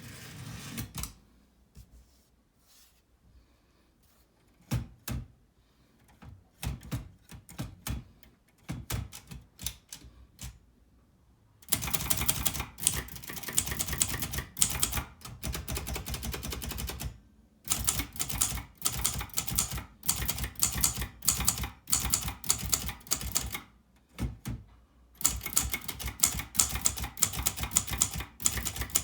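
Silver-Reed typewriter being typed on: a few scattered key strikes and knocks at first, then about halfway through, long runs of rapid keystroke clacking, broken by two short pauses.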